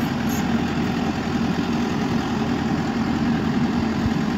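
Engine of a crawler-mounted borewell drilling rig idling steadily.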